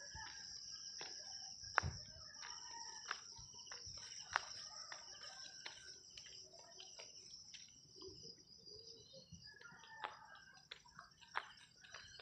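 Steady high-pitched chorus of crickets, with a chicken calling faintly a few times about eight seconds in. Scattered sharp clicks and knocks come from the phone being handled while walking.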